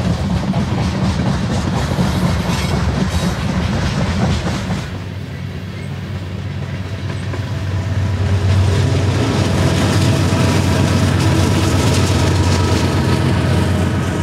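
Loaded coal hopper cars rolling past with wheels clacking over the rails. About five seconds in the sound changes, and a steady diesel engine drone with several steady tones grows louder as a BNSF diesel locomotive coupled among the coal cars draws near.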